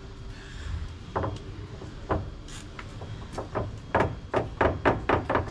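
A series of knocks and thuds on wood around a wooden door, a few spaced strikes at first and then a quicker run of about four a second in the second half.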